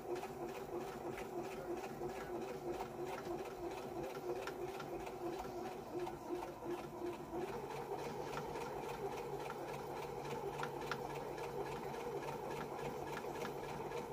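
Electric sewing machine running and stitching: a steady motor hum with a rapid, rhythmic ticking of the needle. The motor's tone changes about halfway through as the sewing speed changes.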